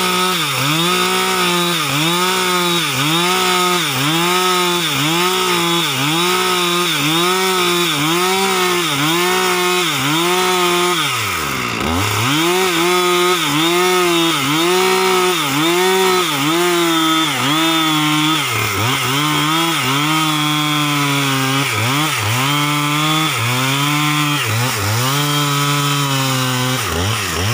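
Gasoline chainsaw with a long bar cutting lengthwise into a large log, running under load throughout. Its engine note dips and recovers about once a second as the cut loads it, with a deeper drop just before the middle.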